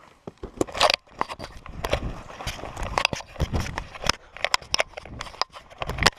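Close, rough scuffling in a struggle with a black bear: the body-worn camera scraping and rubbing against clothing, brush and ground, with many irregular knocks and crackles and a louder scrape about a second in.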